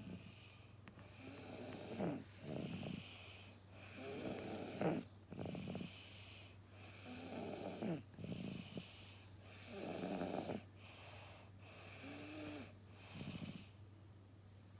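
Child snoring, a rasping snore on the breaths, repeating every couple of seconds over a steady low hum.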